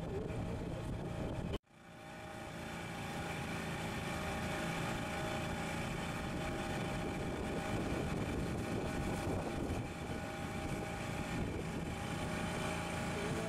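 Boat's outboard motor running steadily under way. The sound cuts out suddenly about a second and a half in and fades back up over the next couple of seconds.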